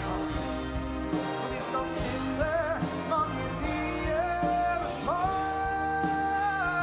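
Male vocalist singing live with a big band accompanying him. He holds one long note starting about five seconds in.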